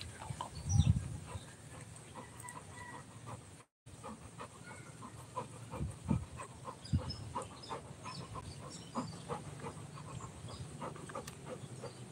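A dog panting close by, with birds chirping in the background and a few low thumps.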